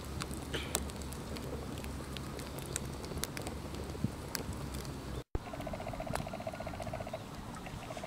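Split-log wood fire crackling with scattered sharp pops over a low steady rumble. After a cut about five seconds in, a rapid pulsing trill sets in, breaks off for a moment and starts again.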